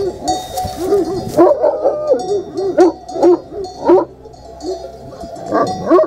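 A flock of sheep bleating, several animals calling over one another in wavering, quavering bleats, with sheep bells clinking faintly.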